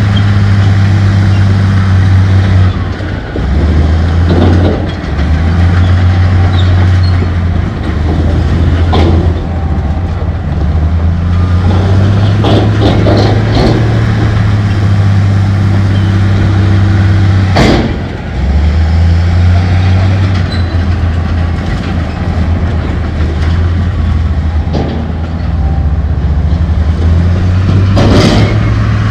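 Bulldozer's diesel engine running hard, its pitch dropping and rising as the load changes, with several sharp knocks of rock or steel.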